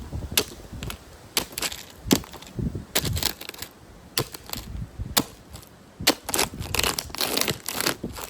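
Plastic toy cars being crushed underfoot by rubber boots: a run of irregular sharp cracks and crunches, with the sharpest snaps about two seconds in and again near five and six seconds.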